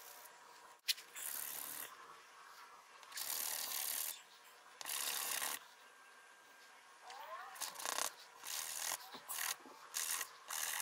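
A small layered wood-veneer pendant being rubbed by hand on a sheet of sandpaper, in a run of separate scratchy strokes up to about a second long, shorter and quicker near the end. A sharp click about a second in.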